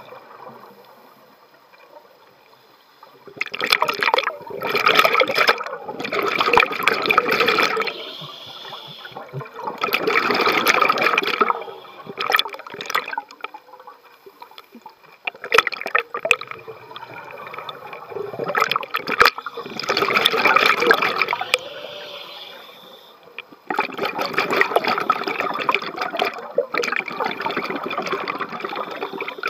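Scuba diver's regulator exhaust bubbling underwater: about five long gurgling rushes of a few seconds each, with shorter quiet pauses between them, in step with the diver's breathing.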